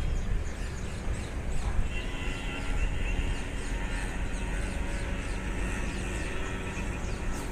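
Outdoor background: a steady low rumble with rapid, repeated short high chirps from birds.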